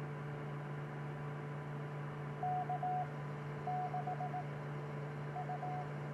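Morse code sent as short groups of dits and dahs in a single beep tone, three groups in a row, over the radio's steady hum and hiss.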